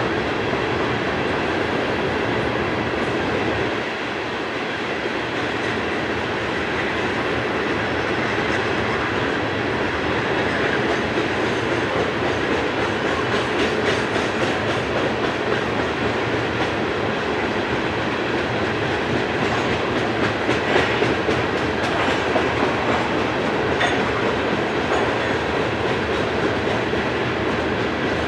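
Coal hopper cars of a freight train rolling past: a steady noise of steel wheels on the rails, with clicking as the wheels pass over rail joints.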